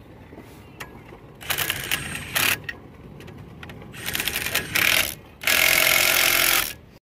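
Impact wrench hammering the lug nuts tight on a wheel, in three short bursts, the last one the longest.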